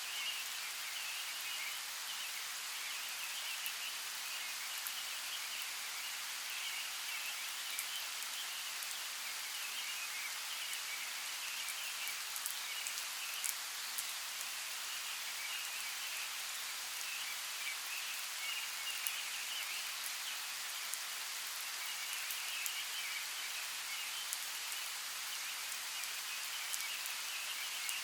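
Light rain falling steadily on forest leaves, a continuous soft hiss with scattered fine drop ticks. A faint high chattering comes and goes over it.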